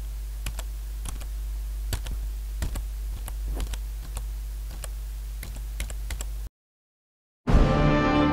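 Computer keyboard typing, heard as irregular key clicks two or three a second over a steady low hum, used as a typing effect for title letters appearing one by one. The typing stops about six and a half seconds in, and after a second of silence music starts near the end.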